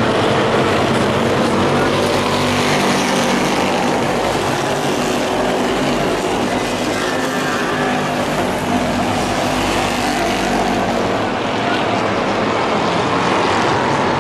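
Engines of several racing pickup trucks running at speed around an oval track, a steady loud engine noise.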